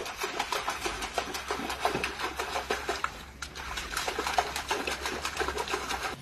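Water splashing as a small dog paddles in an inflatable backyard pool, a quick, irregular run of splashes.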